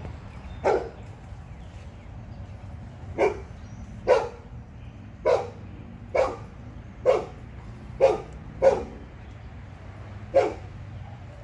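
A dog barking: nine single, sharp barks at uneven intervals, with pauses of up to two and a half seconds between them.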